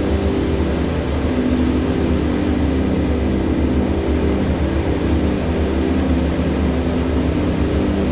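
River water rushing past, a steady low roar with no breaks.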